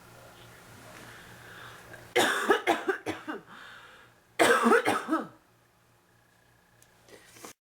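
A woman coughing in two fits about two seconds apart, each a quick run of several harsh hacking coughs, a chest cough from bronchitis.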